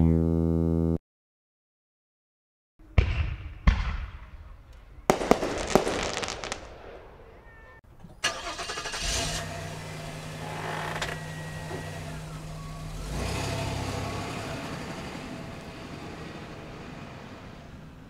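A buzzy electronic game-over tone cuts off about a second in. After a short silence come several sharp thumps and clicks, then a car engine starts and runs, growing louder for a while and then slowly fading.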